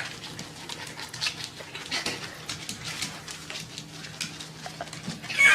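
A dog making a series of short, soft noises, with a louder one near the end.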